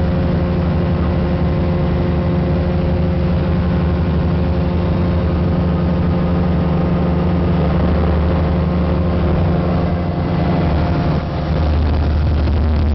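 Flightstar SC ultralight's engine running steadily in level flight, heard from inside the cockpit together with the rush of air. The engine note dips and shifts briefly about eleven seconds in.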